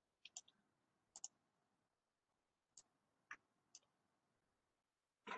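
Near silence broken by about seven faint computer mouse clicks, irregularly spaced, a couple of them in quick pairs.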